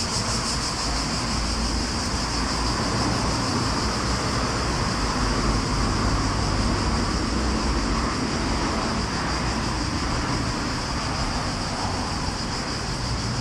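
Steady road traffic on a city street, cars passing in a continuous rumble, with a constant high-pitched hiss over it.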